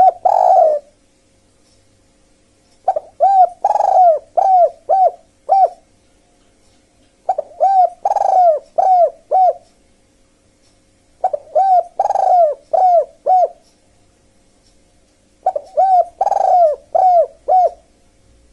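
Dove cooing. Phrases of six or seven quick coos repeat about every four seconds, four full phrases in all, with the tail of another right at the start.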